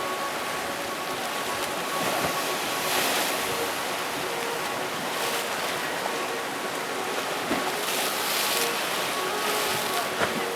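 Rough sea waves at the start of a storm, crashing and washing continuously, with two bigger surges, one about two to three seconds in and another near the end.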